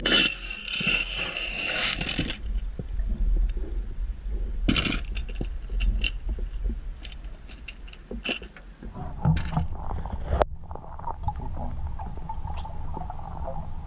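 Muffled underwater camera audio: a steady low rumble with scattered clicks and knocks and a burst of hiss at the start. From about ten seconds in it settles into a steadier, duller hum.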